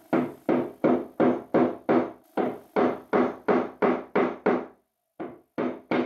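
Rubber mallet tapping a metal bar handle's pins into a chestnut cabinet door, in quick even blows about three a second, each with a short ring. The blows stop briefly near the end, then four more follow.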